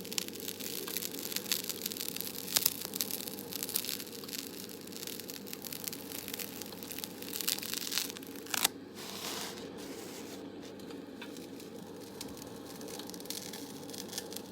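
Close-miked ASMR crinkling and crackling: dense small clicks and rustles, with a louder crackle about nine seconds in, after which it thins out, over a steady low background noise.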